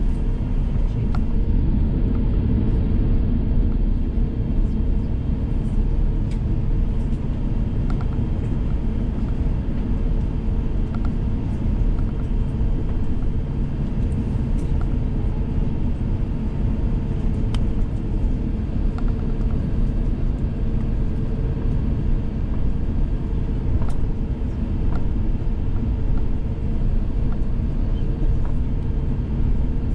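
Steady low rumble of an Airbus A350-1000 as heard inside the cabin, with a held hum and occasional faint clicks and rattles.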